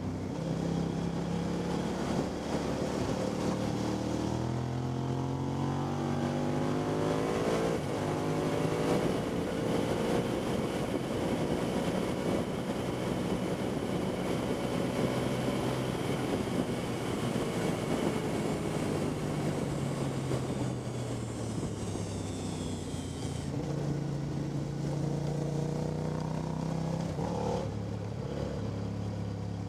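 Motorcycle engine at track speed, seen from onboard: the engine note climbs hard a few seconds in, holds high along a straight, drops away as it slows about two-thirds through, and picks up again near the end. Steady wind rush runs under the engine throughout.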